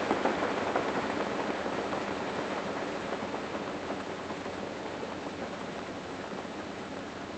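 AI-generated (AudioLDM) sound effect of a pot of potatoes boiling: a steady hiss of bubbling water that slowly grows quieter.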